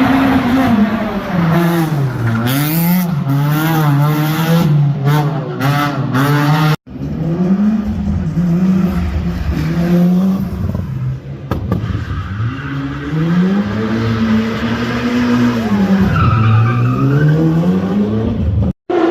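Race car engine revving hard, its pitch swinging up and down repeatedly, with tyre squeal. The revs swing quickly in the first few seconds, then rise and fall in slower sweeps after a brief cut-out about seven seconds in.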